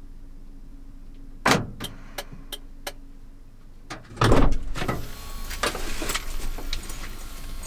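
Inside a Suzuki kei truck's cab: a few sharp clicks, then the driver's door opens with a heavy thump about four seconds in, and the outside noise comes into the cab.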